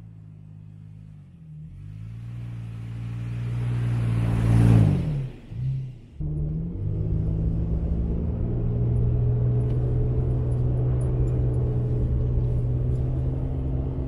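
Toyota Tacoma pickup driving up and past on a snowy road. Its engine and tyre noise grow louder to a peak about five seconds in, and the engine pitch drops as it goes by. After a sudden cut, the same engine is heard running steadily from inside the cab.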